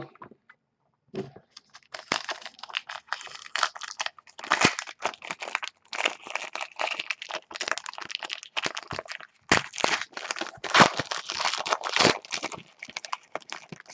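A trading-card pack wrapper being torn open and crinkled by hand: dense crackling from about a second in until near the end.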